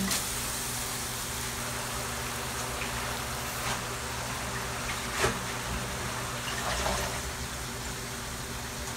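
Water spinach sizzling in a hot wok, a steady hiss over a low hum, with a few light knocks, the sharpest about five seconds in.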